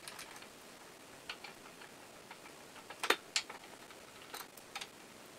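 Scattered light metallic clicks and taps from hand tools and fasteners as the throat cover over the rope opening on a Demag P hoist's rope guide is taken off, with the sharpest pair of clicks about three seconds in.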